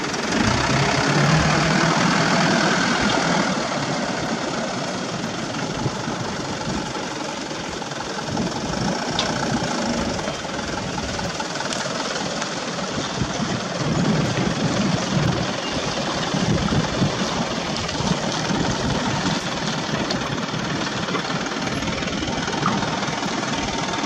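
Diesel engine of a Mitsubishi Fuso Canter dump truck working under a heavy, overloaded bed of sand as the truck drives along a dirt track, loudest in the first few seconds as it pulls away, then running steadily.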